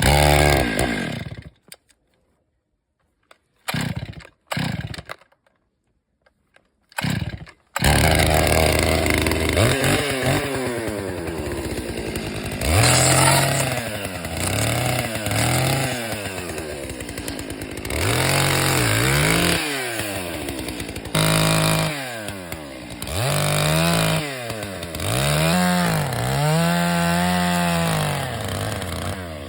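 Chainsaw cutting firewood: a few short bursts broken by silences in the first several seconds, then running continuously from about eight seconds in. The engine pitch rises and sinks again and again as the saw revs and bogs down in each cut.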